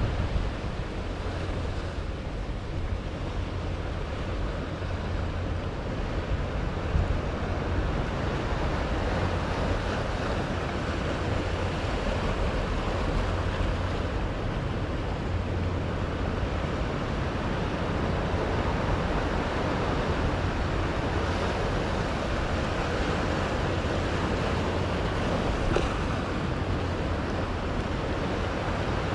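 Sea waves washing in and breaking over a rock shelf, a steady surf wash, with low wind rumble on the microphone.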